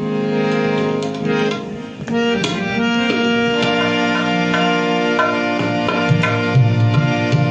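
Instrumental interlude of folk music: a held, reedy keyboard melody over hand-drum strokes, with the low drum strokes growing heavier about two-thirds of the way through.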